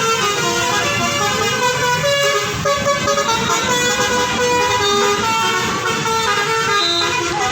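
Bus telolet horns playing a tune: a run of held multi-tone notes stepping up and down in pitch, one after another without a break, over a low rumble.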